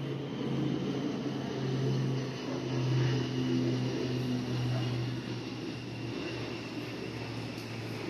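A steady, low engine drone with a wavering level, fading after about six seconds.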